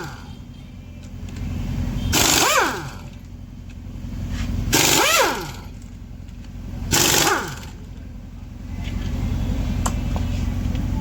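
Air tool, most like a pneumatic impact wrench, fired in four short bursts about two seconds apart while parts are unbolted from a dismantled engine. Each burst winds down in a falling whine, over a steady low hum.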